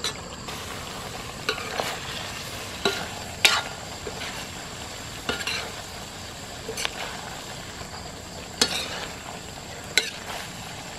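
Chicken pieces sizzling in a pan of masala as it is stirred, with freshly added coriander and chilli powder. The spoon scrapes and knocks against the pan every second or two over the steady sizzle.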